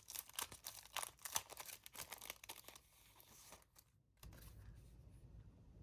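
Packaging crinkling and rustling as it is handled and opened, a quick run of small crackles that stops about three and a half seconds in.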